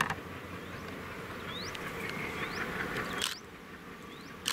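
Heavy rain hissing steadily, with short rising chirps from a small animal, mostly in pairs about every two seconds. A few sharp taps cut through, the loudest about three seconds in, after which the rain hiss drops.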